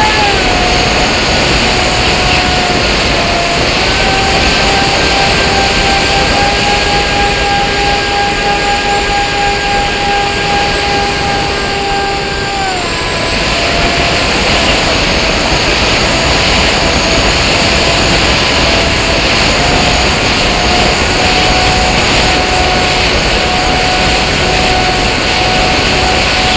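Motor and propeller of a radio-controlled model plane, heard from its onboard camera: a steady whine whose pitch steps down and up several times with the throttle, over a loud rush of wind on the microphone.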